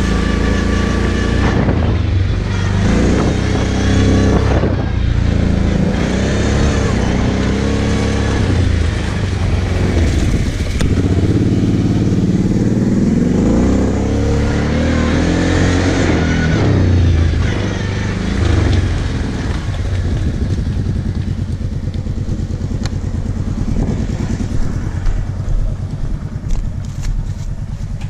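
Kawasaki KFX 700 V-Force quad's V-twin engine running under the rider, its pitch rising and falling again and again as the throttle is opened and closed. In the last several seconds it settles back to a lower, steadier idle.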